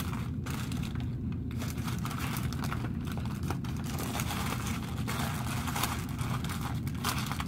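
Paper food wrapping crinkling and rustling, mixed with crunchy chewing, over a steady low hum.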